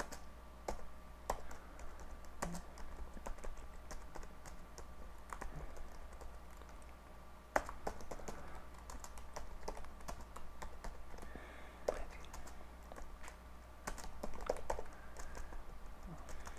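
Typing on a computer keyboard: irregular key clicks in short runs with pauses, one click a little louder about halfway through, over a steady low hum.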